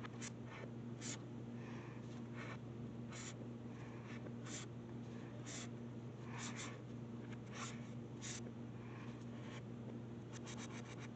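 Sharpie fine-point marker scratching across paper in a series of short pen strokes as letters are written, played backwards. There is a quick flurry of strokes near the end, over a steady low hum.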